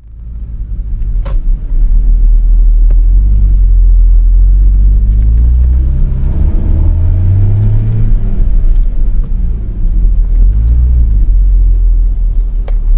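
Porsche Cayman engine and road rumble heard inside the cabin as the car drives slowly, with the revs rising and falling a few times. The sound fades in over the first couple of seconds.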